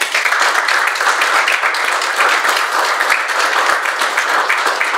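An audience applauding, many hands clapping at once. The clapping sets in all at once and holds steady and loud.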